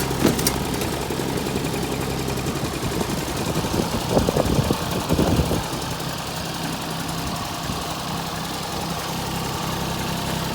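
Lawn tractor engine running steadily, with a stretch of irregular rattling about four to five seconds in. After the rattling the engine note settles a little higher.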